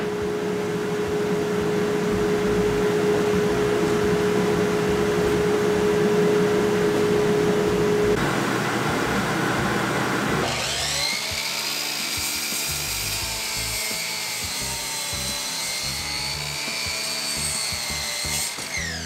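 Woodworking power tools cutting wood: steady sawing noise with a held hum for the first eight seconds or so. Then, from about ten seconds in, the high whine of a sliding miter saw's blade, which winds down near the end.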